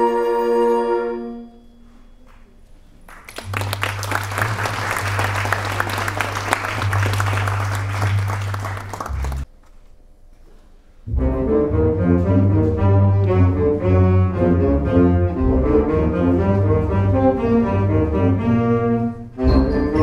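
Concert band music: a held chord dies away, then after a short pause a noisy swell of rapid strokes over a sustained low note, another pause, and then the full band comes in with a busy rhythmic passage.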